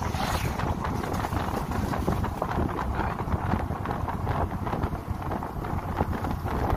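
Wind buffeting the microphone over the steady rumble and rattle of a moving vehicle on the road.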